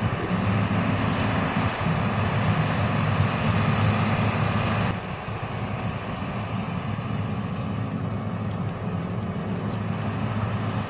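Large farm machine's engine running steadily with a deep hum. About halfway through the brighter, rushing part of the noise drops away and it turns a little quieter while the engine drone carries on.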